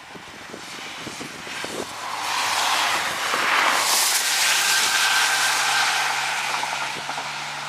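A motor vehicle passing, its tyre and engine noise swelling from about two seconds in, holding loud through the middle, then easing off near the end.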